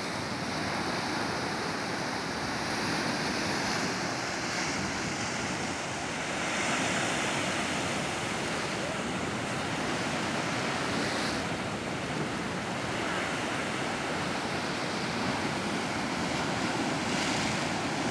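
Sea surf washing steadily against a rocky shore, with wind buffeting the microphone.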